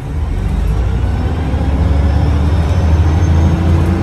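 Mercedes-Benz O405NH city bus pulling away: a low engine drone under a slowly rising whine from its Voith automatic gearbox, growing louder over the first couple of seconds.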